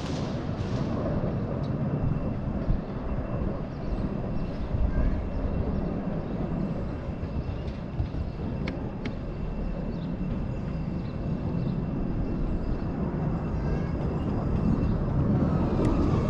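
Distant military aircraft flying over, a steady low rumble with a few faint clicks.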